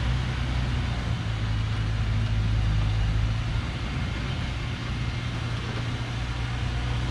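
Old Thaco Forland diesel truck loaded with acacia logs, its engine running at low speed with a steady low rumble as the truck crawls along a dirt track.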